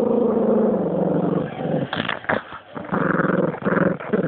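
Dog growling right at the microphone while guarding a lamb bone: one long growl of about two seconds, then a few short snarls and two shorter growls.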